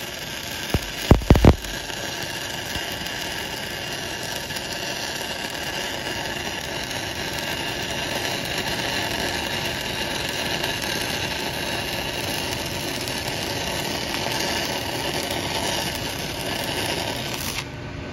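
Stick welding arc on a 6010 rod burning a downhill root pass in the pipe bevel, crackling and hissing steadily. It opens with a few sharp cracks about a second in as the arc is struck, and cuts off near the end, which the welder puts down to the tight bevel pushing his rod out.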